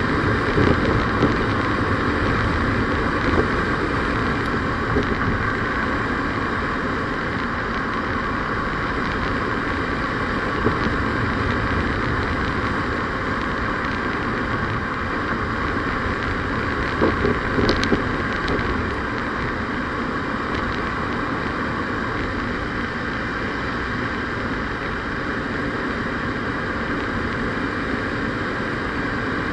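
Steady road and engine noise of a vehicle on the move, with a few short knocks, several close together a little past the middle.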